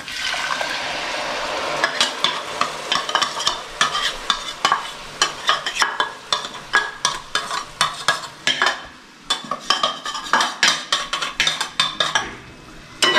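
Roasted coconut paste sizzling as it drops into the hot masala in a metal pot, then a steel ladle scraping the paste out of a bowl and stirring it in, in quick repeated scrapes and clinks.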